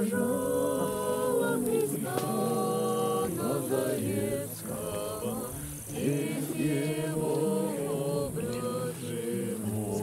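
A small group of men and women singing a Christian hymn together in unison, with an acoustic guitar accompanying; the singing dips briefly around the middle.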